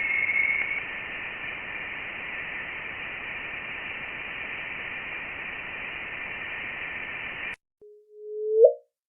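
Steady electronic hiss with faint high tones, presented as a sound from space, cutting off suddenly about seven and a half seconds in. A short low tone follows and glides sharply upward near the end.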